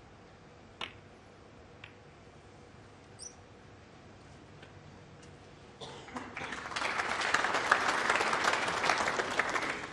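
Snooker cue tip striking the cue ball with a sharp click, then a softer ball-on-ball click about a second later. About six seconds in, audience applause rises for the shot and runs for nearly four seconds, the loudest sound here.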